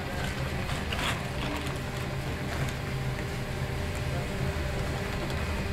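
Bakery machinery running with a steady low hum, with a short rustle about a second in as flour is tipped from a sack into the mixer bowl.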